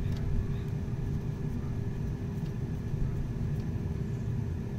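2008 GMC Sierra 1500's engine idling steadily, heard from the open engine bay as an even low hum.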